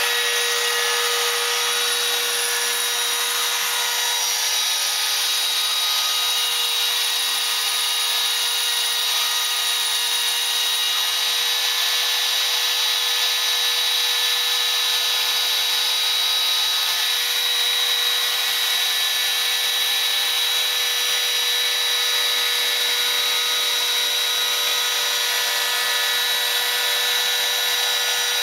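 Spindle of a homebuilt CNC router running steadily while milling, a constant whine over a dense cutting hiss.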